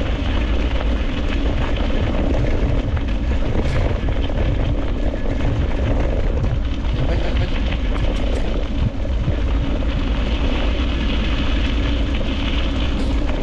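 Steady rush of wind buffeting a handlebar-mounted microphone, mixed with the rolling noise of wheels on a gravel road at speed.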